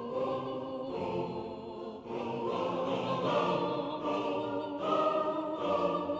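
Background music: a choir singing held chords that change about once a second.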